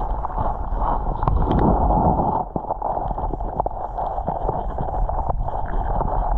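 Stream water heard through a submerged camera's waterproof housing: a steady, muffled rushing with many scattered small clicks and knocks.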